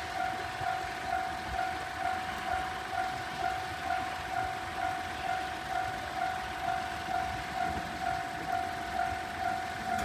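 Japanese railway level-crossing alarm ringing its electronic bell tone, a single pitched ding repeated a little more often than once a second. It warns that a train is approaching.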